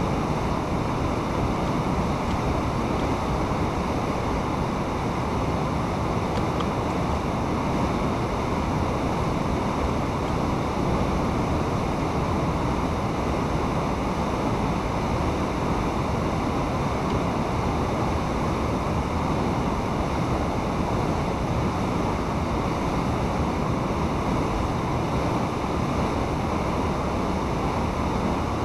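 Fast-flowing water rushing steadily through a channel, with white water churning near the bank.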